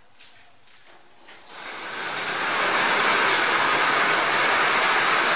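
Water splashing and drumming on a galvanized corrugated steel roof, heard from the roof space directly beneath the sheets. It starts about one and a half seconds in, builds quickly, and holds as a very loud, steady rush like a heavy rainstorm on metal.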